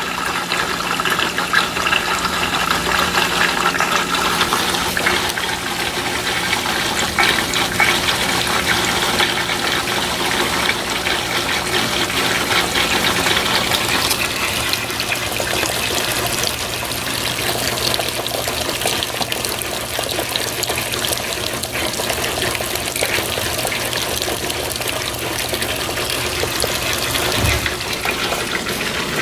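Brastemp BWT12 12 kg top-loading washing machine filling with water: a steady rush of water pouring into the tub, with a low hum underneath.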